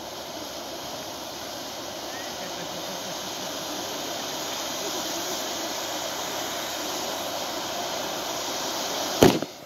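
Ground fountain fireworks spraying sparks with a steady rushing hiss that slowly grows louder. A single sharp bang comes near the end.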